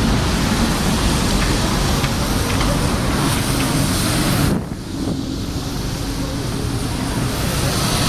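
Street traffic noise from passing vehicles, with wind buffeting the microphone; the sound changes abruptly about halfway through.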